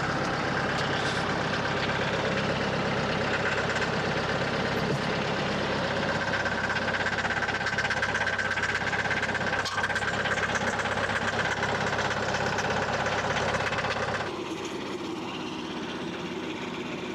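An engine running steadily, with a faint whine above it; about fourteen seconds in it drops noticeably quieter and keeps running.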